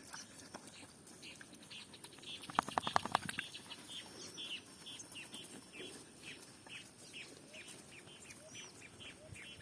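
A bird calling over and over in short chirps, about three a second. The loudest moment is a brief rapid rattling burst about two and a half seconds in.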